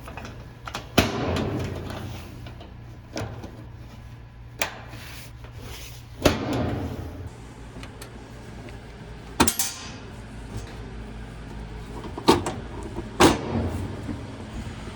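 Washer parts and tools knocking and clunking during reassembly: about seven separate sharp knocks, some with a short ring after them, over a steady low hum.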